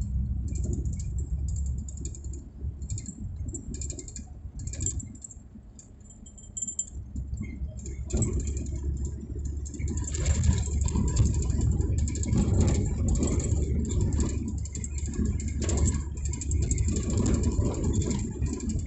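Engine running under a low rumble with much loose rattling, like a vehicle moving over rough ground. It drops away briefly and comes back louder a few seconds later.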